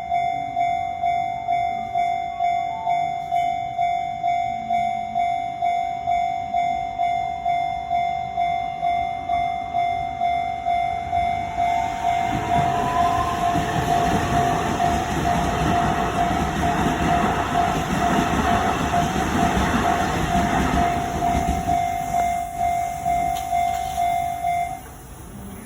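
Japanese railroad-crossing alarm bell ringing its steady 'kan-kan' at about two strikes a second. From about halfway in, a Shin-Keisei Line electric train passes for some ten seconds: a rising whine as it comes in, then the rumble of wheels on rails. The bell stops just before the end.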